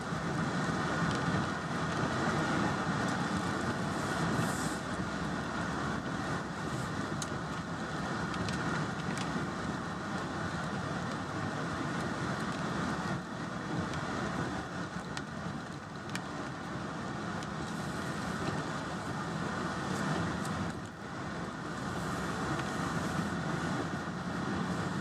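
Truck driving slowly, heard from inside the cab: steady engine and tyre noise with scattered faint ticks.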